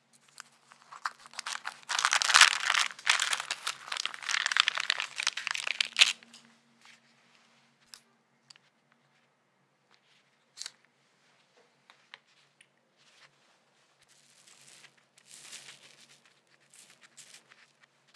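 Baking paper crinkling as baked red velvet sponge rounds are peeled off it: a loud crackling stretch from about two to six seconds in, then scattered soft crackles and ticks as the rest are lifted off.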